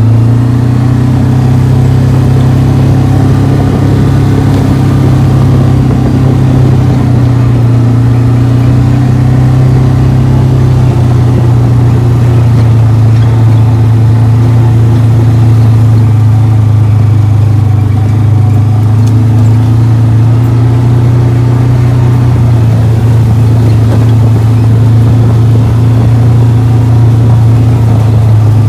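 Vehicle engine running steadily while driving, a loud even drone whose pitch barely changes.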